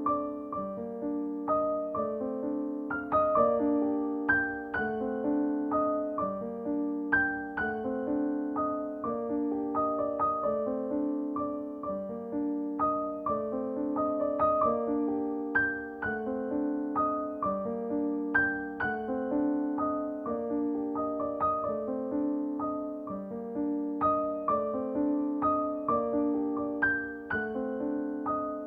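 Background music: a gentle piano melody playing steady, evenly paced notes.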